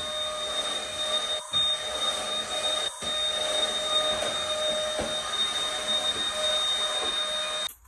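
Stick vacuum cleaner running steadily with a motor whine, interrupted twice in the first few seconds and cutting off suddenly near the end.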